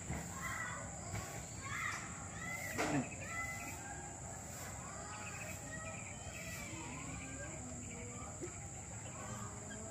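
Small birds chirping over a steady high insect drone, with one sharp knock about three seconds in.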